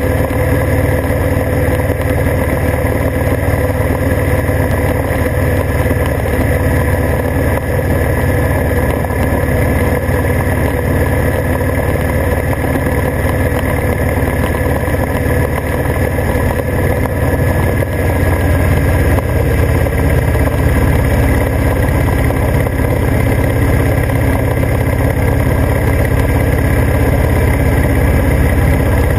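Motorcycle cruising steadily at highway speed, heard from a camera mounted on the bike: constant engine drone mixed with a heavy low rumble of wind and road noise, a little louder after about twenty seconds.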